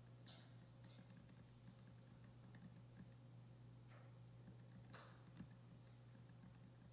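Near silence: room tone with a steady low hum and a few faint, sharp clicks, such as keys pressed on a laptop while paging through presentation slides.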